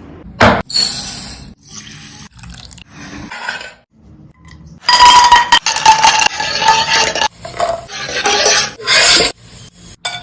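Kitchen cooking sounds: water running or being poured, with pots and utensils clinking. A few sharp knocks come first, and a longer loud stretch of water sound follows about halfway through.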